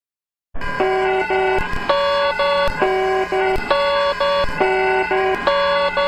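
Antigua and Barbuda EAS emergency alert alarm: an electronic alarm made of stacked steady tones that step between a lower and a higher pitch, repeating about every two seconds. It starts about half a second in, after a brief silence.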